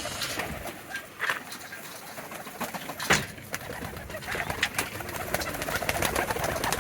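Pet birds calling, with scattered sharp clicks and a louder knock a little after three seconds in.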